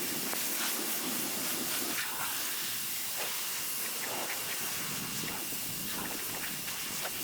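Sun Joe SPX3000-QW2 electric pressure washer spraying, its high-pressure water jet making a steady hiss.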